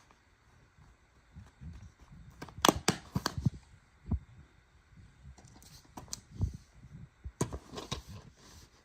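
Scattered plastic clicks and taps of DVD cases being handled, in small clusters with pauses between.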